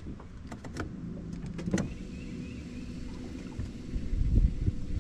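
Fishing rod and reel being worked after a missed bite: several sharp clicks and a faint steady whir from the reel, then wind buffeting the microphone with a low rumble about four seconds in.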